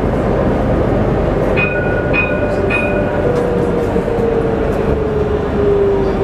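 Alstom Citadis tram running on its rails, heard from inside the driver's cab, with a steady rumble. About a second and a half in come three short beeps, and in the second half an electric drive whine falls steadily in pitch.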